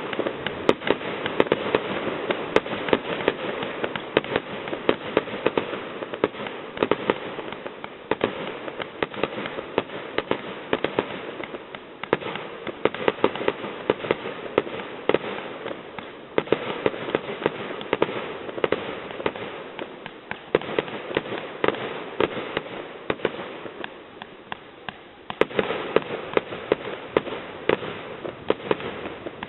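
Finale barrage of aerial firework shells bursting in rapid, overlapping succession. The rumble echoes off the surrounding mountains. The bangs thin out briefly about 24 seconds in, then resume densely.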